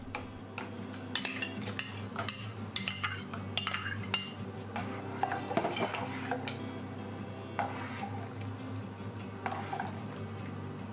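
Metal ladle stirring yogurt soup in a stainless steel pot, with irregular clinks and scrapes as it knocks against the pot's sides and bottom.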